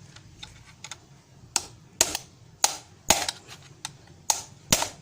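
Hammer striking a concrete nail used as a punch to knock out the through-bolt of a washing machine motor: six sharp metal blows in three pairs, starting about a second and a half in.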